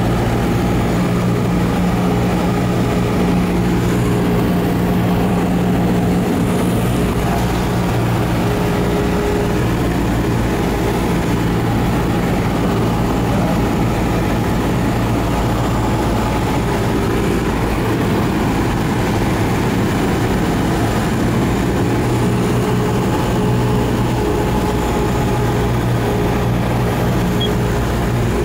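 Cessna 172S in cruise descent, its four-cylinder Lycoming engine and propeller running steadily, heard from inside the cabin as an even drone with rushing air.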